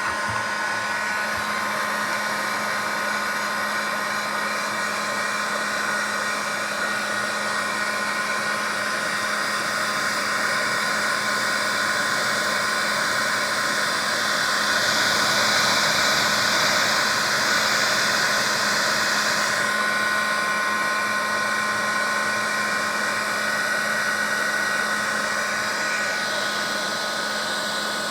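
Heat gun blowing steadily, heating a Kydex holster to soften it for reshaping; its fan motor hums with a few steady whining tones. Between about 15 and 20 seconds in, a brighter hiss joins it.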